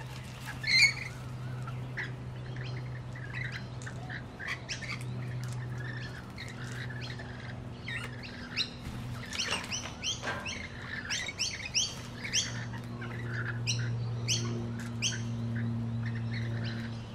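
Parrots, rainbow lorikeets among them, giving short, sharp chirps and squawks that grow thick and rapid about halfway through, over a steady low hum.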